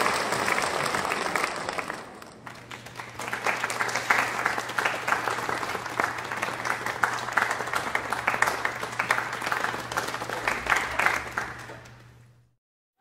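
Crowd applause, a recorded sound effect. It fades about two seconds in, then a second round of clapping swells up and fades away near the end, with a low steady hum under it.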